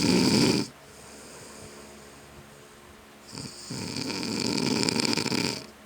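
A sleeping man snoring loudly. One rattling snore cuts off about half a second in, and after a quiet breath a second snore of about two seconds begins around three and a half seconds.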